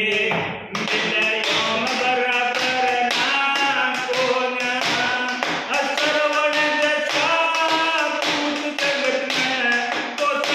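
A man singing a Haryanvi ragni folk song, keeping a steady beat by tapping a thin stick on a wooden desk.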